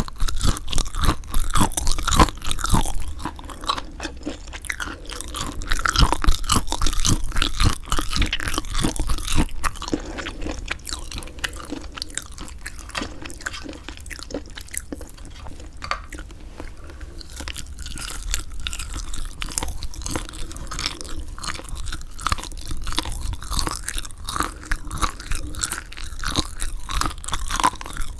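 Close-miked chewing of semi-dried squid: dense, rapid wet clicks and crackles of the chewy flesh, louder for the first ten seconds or so, then softer steady chewing.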